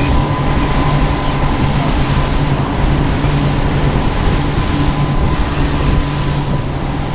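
Sportfishing boat underway: a steady engine drone with a thin steady whine above it, over a constant rush of water and wind noise.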